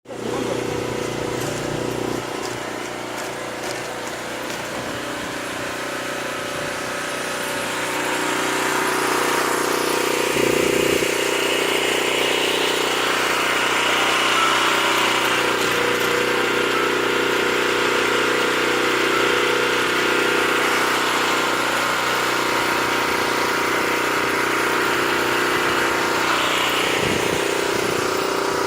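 A motor running steadily with a continuous hum, growing louder about eight seconds in.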